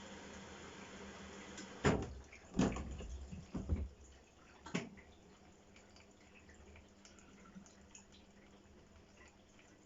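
Hoover H-Wash 500 washing machine during a service-mode check: a steady hiss stops, then four clunks come over about three seconds, followed by faint dripping and trickling water.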